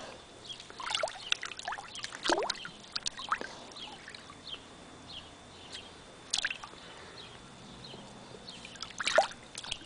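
Husky dabbling his muzzle in shallow pool water: scattered gurgles, plops and small splashes as he blows bubbles and noses after a floating toy, the loudest burst about nine seconds in.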